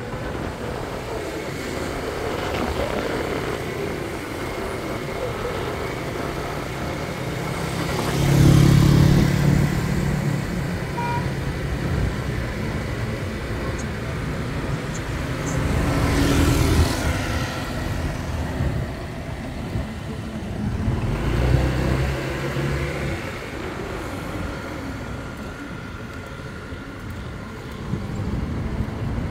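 Road noise heard from a moving motorbike in traffic: a steady rush of engine, tyres and wind. It swells louder three times, about 8, 16 and 21 seconds in, as vehicles go by.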